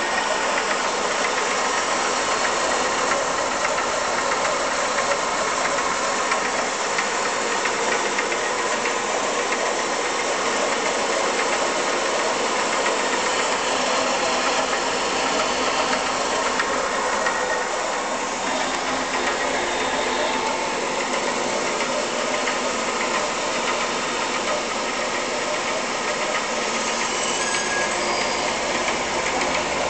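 A 20-inch Davis and Wells bandsaw running steadily, its motor and belt-driven pulley making an even mechanical noise.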